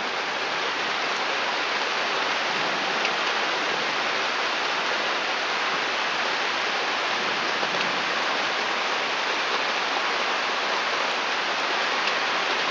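Pouring rain falling steadily on a wooden deck, an even hiss.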